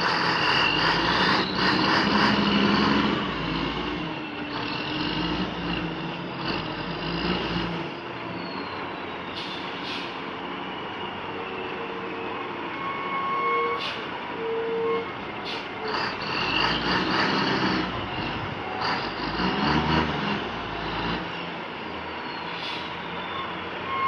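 Heavy logging truck's engine running under load, louder near the start and again about two-thirds through, with scattered knocks and rattles.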